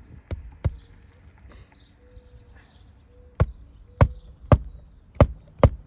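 Hammer driving roofing nails into asphalt shingles: two sharp strikes at the start, a pause, then a steady run of five blows about two a second, hitting the nail home flush.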